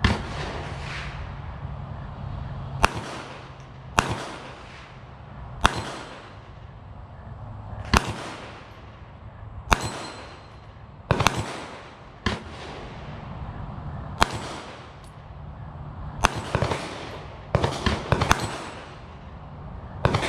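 Gunshots at a shooting range: about fourteen sharp reports spaced irregularly, a second or two apart, some louder and some more distant, each followed by a ringing echo, with a quick cluster of shots near the end.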